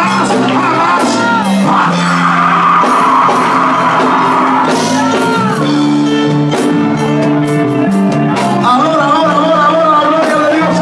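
Live worship music with held chords, and a man singing and shouting through a microphone over it.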